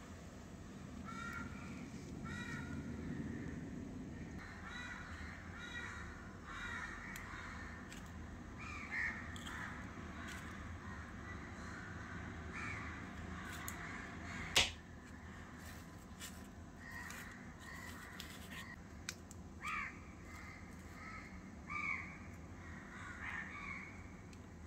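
Birds calling repeatedly, with short calls coming on and off. One sharp click about halfway through is the loudest sound.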